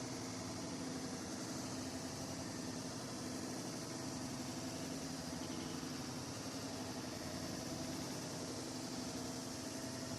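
A steady mechanical hum: a constant low drone with an even hiss over it, unchanging throughout.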